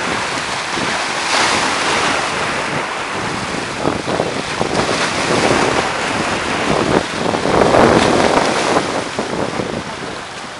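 Rough sea: waves slapping and splashing while wind buffets the microphone, a continuous rushing noise that swells and eases several times.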